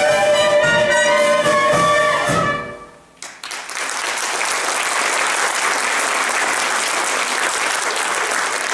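The last bars of a stage-musical song, ending on a long held note about two and a half seconds in; after a brief gap the audience breaks into steady applause.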